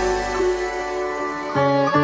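Instrumental background music with held plucked-string notes, a new note coming in about one and a half seconds in.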